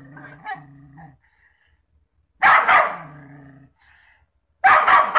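A dog growls low for about the first second, then barks loudly twice, a little over two seconds apart, at its own reflection in a mirror.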